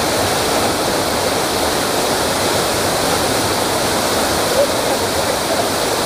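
Waterfall pouring into a pool: a steady rush of falling water.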